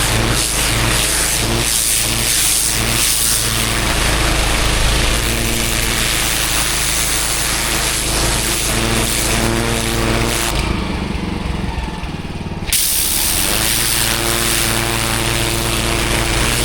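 Engine-driven pressure washer running with the high-pressure water jet spraying onto block paving. About ten seconds in the spray stops for roughly two seconds while the engine keeps running, then cuts back in suddenly.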